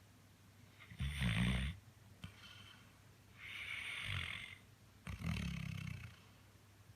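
A sleeping chocolate Labrador Retriever snoring, one slow breath every couple of seconds. There is a rumbling snore about a second in, the loudest of them, an airy hissing breath near four seconds, and another rumbling snore around five seconds.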